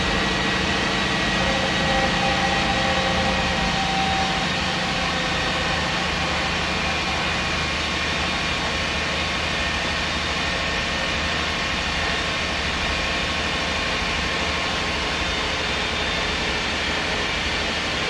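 MAN SD202 double-decker bus with its MAN D2566 MUH six-cylinder diesel running steadily, heard from inside the passenger saloon as a constant drone. A faint whine sits over it for a few seconds near the start.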